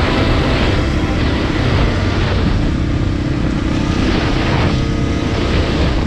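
Dirt bike engines running at riding speed, heard with heavy wind rush on the microphone. The noise is loud and steady, with a faint engine tone through the middle.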